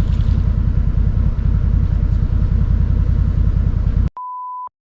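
A four-wheel drive's engine running, a loud low rumble with a fast even pulse. About four seconds in the sound cuts out and a short steady beep is heard, a censor bleep.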